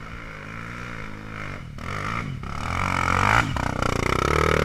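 Single-cylinder four-stroke trail motorcycle engine revving under load on a dirt trail. The pitch rises and falls with the throttle, and it grows louder toward a peak past the middle, with a brief dip just after.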